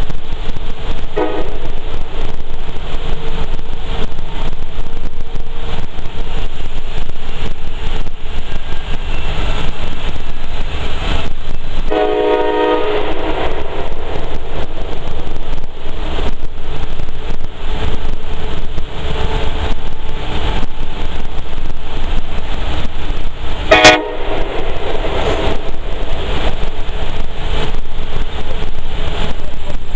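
Nathan K5LA five-chime train air horn mounted on a truck's roof, sounded inside a road tunnel over a steady rumble of truck and traffic. It gives a brief blast about a second in, a longer chord of about a second and a half around the middle, and a very short blast near the end.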